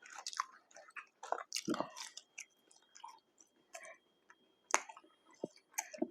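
A person chewing McDonald's food close to the microphone: irregular mouth clicks and smacks, one louder near the end.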